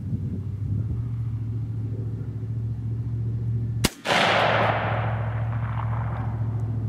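A single sharp gunshot about four seconds in, followed by a rolling echo that dies away over about two seconds, over a steady low hum.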